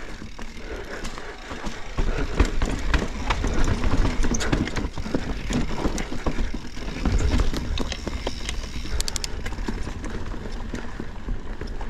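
Mountain bike riding through a rock garden: tyres knocking and rattling over the rocks in a rapid string of sharp clicks and thuds over a steady low rumble, with a heavier thumping about seven seconds in.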